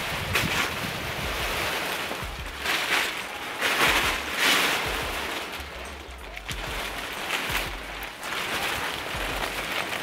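Wet plastic tarp being dragged and bunched up, rustling and swishing in several louder surges.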